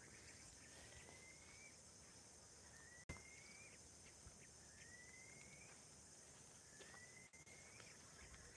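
Faint outdoor ambience: a steady high insect drone, over which a rising whistled call repeats about every two seconds, each call lasting about a second. There is a brief click about three seconds in.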